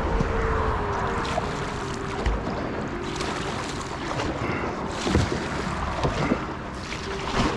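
Water splashing and rushing around a kayak being paddled in a fast, flooded stream, with wind on the microphone and a few sharp knocks about five to seven seconds in.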